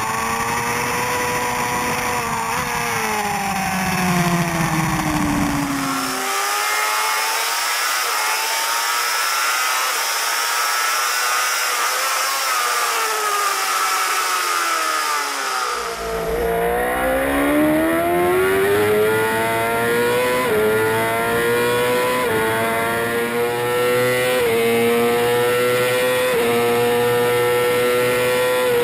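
Onboard sound of a J-GP2 600 cc four-stroke racing motorcycle engine at race pace. The engine note first falls as the bike slows. For several seconds in the middle, wind rush over the camera drowns the low end of the engine. Then the revs climb hard under acceleration, with a step in pitch at each gear change.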